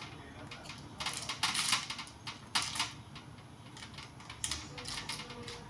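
Small metal spoons scraping and clicking against each other as oat cookie dough is pushed off onto a parchment-lined baking tray, in a few short, irregular scrapes.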